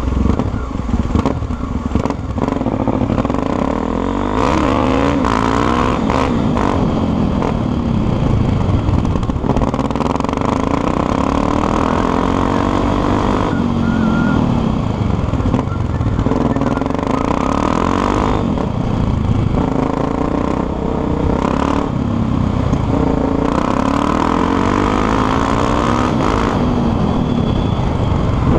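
Honda XR250 Tornado's single-cylinder four-stroke engine running, its pitch rising and falling again and again as the revs go up and down.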